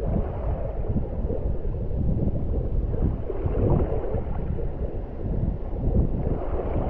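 Wind buffeting the microphone in a low, uneven rumble, mixed with the wash of rough sea surf.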